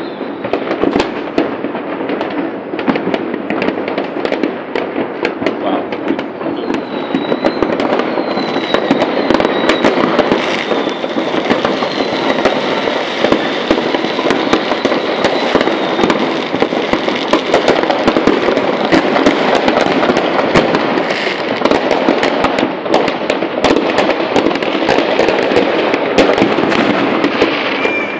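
Many fireworks going off at once: a dense, unbroken crackle of bangs and pops, with a few high whistles in the first half.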